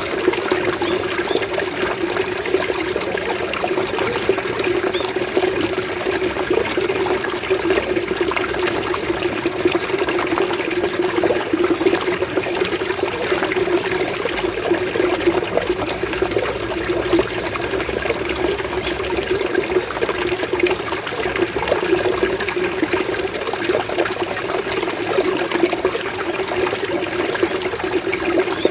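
Running water gurgling and burbling steadily, with a low bubbling at its core.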